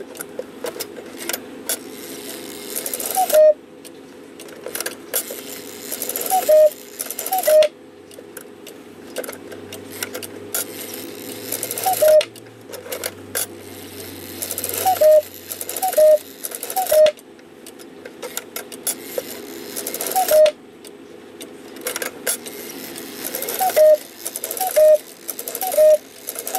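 Hubert Herr cuckoo clock movement running: short bursts of mechanical whirring and clicking, with brief tonal notes, repeated at irregular intervals over a steady hum.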